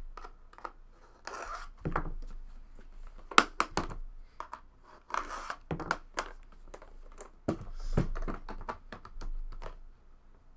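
Packaging of a 2016 Panini Flawless Soccer trading-card box being opened by hand: wrapping crinkling and tearing in short spells, with scattered clicks and knocks from handling the box.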